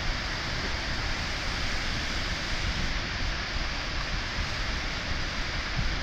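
Ocean surf breaking and washing ashore, a steady noise with no let-up, with the low rumble of wind on the microphone.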